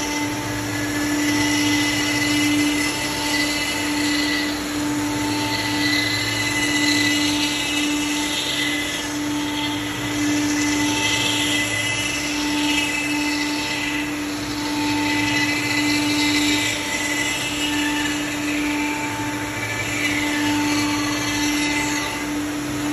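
CNC router running a cut in wood: the spindle whines at a steady pitch while the bit's cutting noise swells and fades every second or two as the tool moves along its path.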